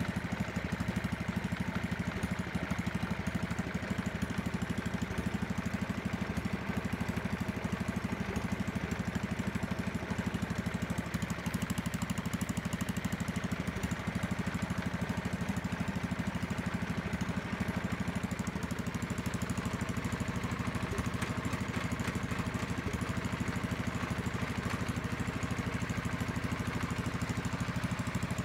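Kohler K301 single-cylinder four-stroke engine on a Howard Gem rotavator running steadily at an even speed, out of gear.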